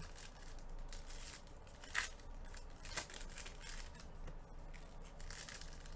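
Foil trading-card pack wrappers being torn open and crinkled, with two sharp crackles about a second apart.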